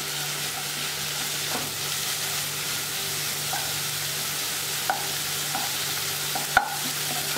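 Boiled drumstick leaves sizzling softly in a nonstick kadai as their remaining moisture cooks off, stirred with a wooden spatula that scrapes along the pan. A few light taps of the spatula on the pan, the sharpest about six and a half seconds in.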